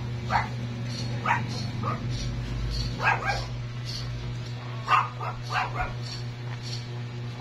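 Newborn puppies giving short, high whimpers and yips while nursing, several small cries coming in clusters every second or two.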